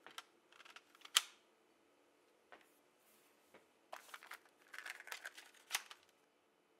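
Quiet plastic clicks and rattles of a Sony portable player being handled: one sharp click about a second in, then a run of clicks and small clatters from about four to six seconds in as fingers work its buttons and casing.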